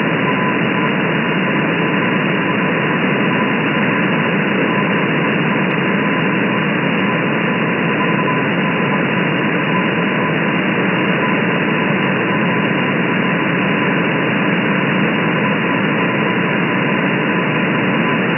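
Shortwave radio static hissing steadily through an RTL-SDR V3 receiver in upper-sideband mode, with a faint steady tone just above the noise: the weak signal of the M12 Morse code number station.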